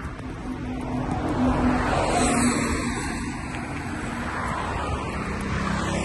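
Road traffic: a car passing close, with engine and tyre noise swelling about one to three seconds in, then a steady street hum.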